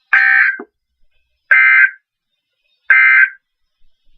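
NOAA Weather Radio SAME end-of-message code, heard through a weather radio receiver: three short, buzzy digital data bursts, each about half a second long and about one and a half seconds apart. They signal the end of the severe thunderstorm warning broadcast.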